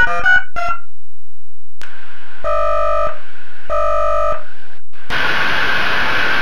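Dial-up modem sounds as the WiFi modem dials: the last few touch-tone dialing tones, a pause and a click, two rings, then from about five seconds in the steady hissing carrier of the modem handshake.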